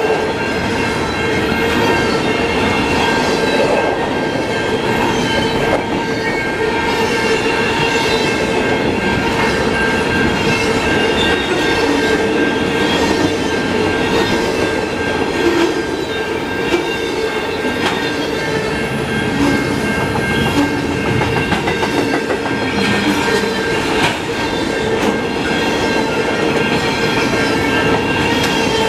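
Freight train of double-stack intermodal container well cars rolling past at speed: a steady rumble of steel wheels on rail, with a clatter over the rail joints and a steady high-pitched wheel squeal ringing over it.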